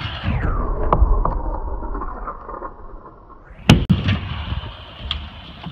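Stunt scooter wheels rolling over concrete, with a few light clicks and one loud, sharp clack a little past halfway through.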